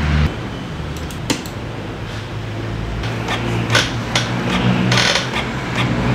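Inkjet printer running a print job, its mechanism clicking and whirring as a printed page feeds out, with a steady low bass line from background music underneath.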